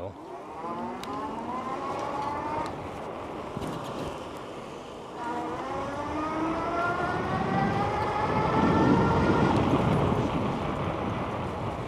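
Electric bike's motor whining and rising in pitch as the bike pulls away. It eases off about two and a half seconds in, then climbs again from about five seconds. A rushing noise builds under it and is loudest about nine seconds in.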